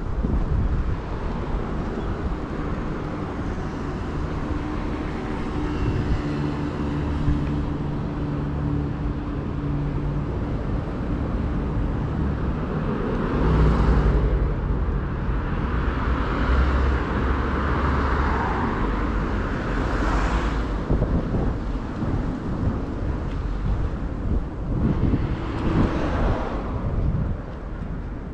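Street traffic: a continuous rumble of cars driving by, with an engine hum early on. In the second half, several vehicles pass close one after another, each a swell of tyre and engine noise.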